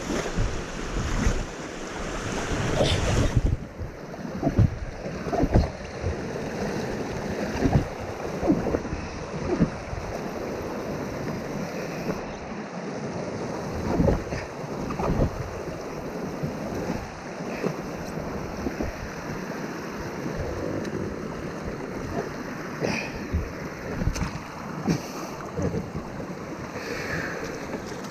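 Rushing water of a shallow river rapid around a sit-on-top kayak, with repeated knocks and splashes as the paddle pushes against the rocky bottom to free the kayak where it has run aground.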